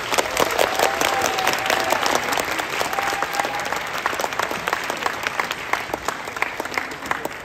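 Audience applauding, with a held cheer or two in the first few seconds; the clapping thins slightly near the end.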